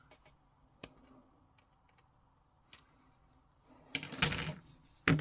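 Small plastic parts of a push-fit miniature kit being handled: a few sharp clicks, a louder clattering rustle about four seconds in, and another sharp click near the end.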